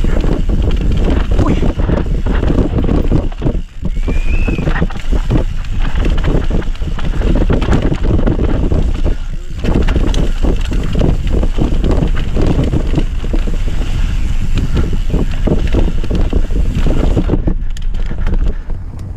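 Mountain bike descending a rough dirt singletrack at speed: heavy wind rumble on the helmet-camera microphone, with constant rattling and knocking from the bike and tyres over bumps.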